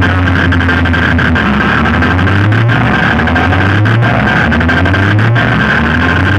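Electronic DJ competition remix played at high volume through a stack of speaker boxes and horn speakers: a held deep bass note with tones sliding down and back up over it, a steady high tone, and sharp beat hits.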